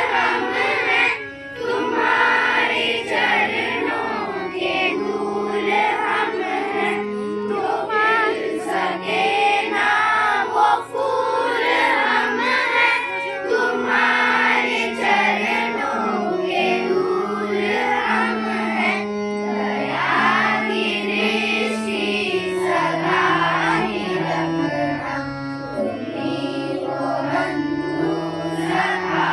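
Children's voices singing a prayer song together, accompanied by a harmonium holding steady chords beneath the melody.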